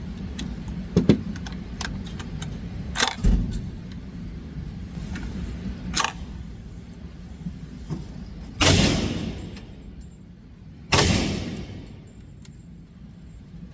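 Gunshots on a shooting range: sharp bangs a few seconds apart, the last two loudest and echoing away for about a second each, with lighter clicks and knocks between.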